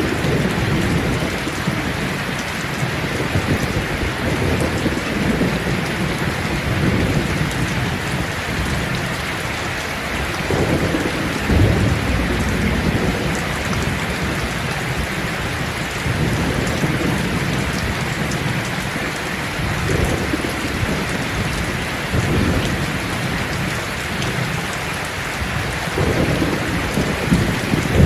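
Steady rain falling on leaves, a dense even hiss, under low rolling thunder that swells and fades every few seconds, loudest about a third of the way in and again near the end.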